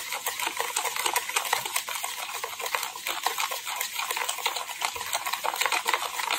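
Steel spoon beating dalgona coffee mix (instant coffee, sugar and water) by hand in a stainless steel bowl: fast, continuous clicking and scraping of spoon against metal as the mixture is whipped toward a froth.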